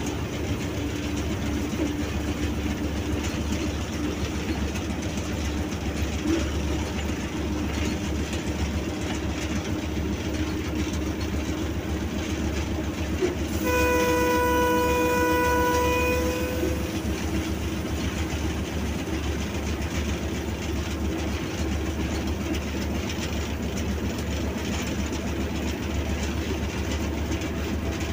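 PHA-20 locomotive running, heard inside its cab: a steady engine drone and hum with wheel and rail noise. About halfway through, the locomotive's horn sounds once for about three seconds.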